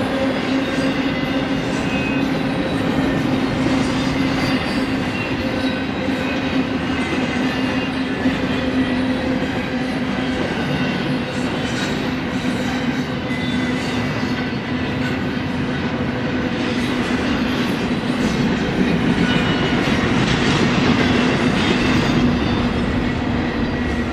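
Double-stack intermodal freight cars rolling past steadily: a continuous rumble of steel wheels on the rails with a steady low hum, and thin high squeals that come and go.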